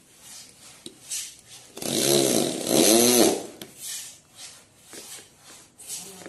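Corded electric drill driving screws to fix a concealed cabinet hinge to a laminated door panel. About two seconds in, the motor whirs in two short runs, each speeding up and then slowing down.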